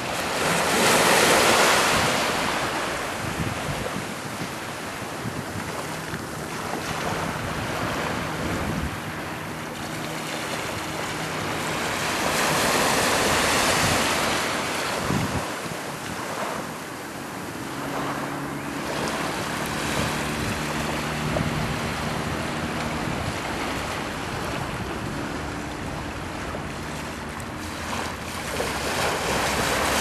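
Small sea waves washing in and out on a sandy beach, with louder surges about a second in, midway, and near the end.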